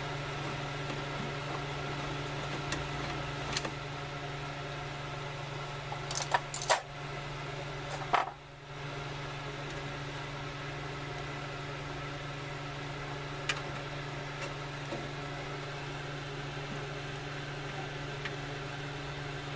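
Scattered metallic clicks and clinks of hand tools and screws against the water heater's sheet-metal casing, loudest in a brief cluster about six to seven seconds in, over a steady low hum.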